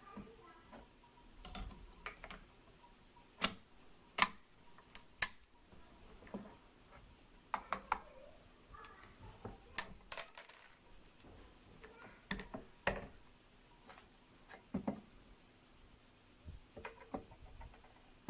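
Irregular sharp clicks and knocks of hard objects being handled, a dozen or so spread unevenly with a few pauses, over a faint steady hum.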